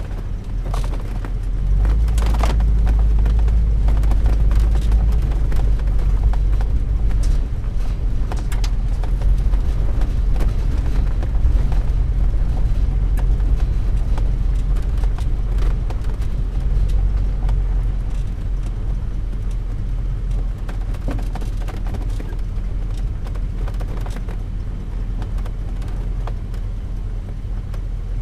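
Class C motorhome driving, heard from inside the cab: a steady low rumble with frequent small rattles and knocks.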